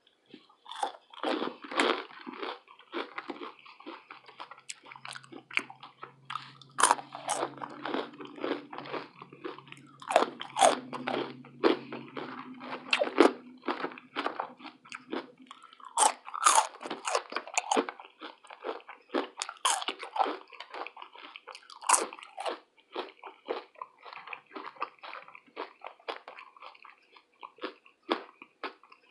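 A person biting into and chewing crunchy fried food, with irregular crunches and chewing sounds throughout.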